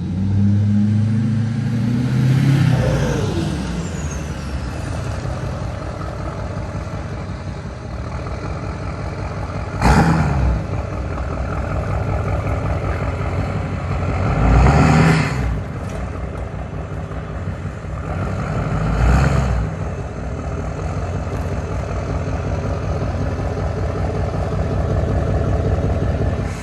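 Truck engine pulling away and accelerating, its pitch climbing over the first few seconds, then running steadily under way. It surges louder about ten, fifteen and nineteen seconds in.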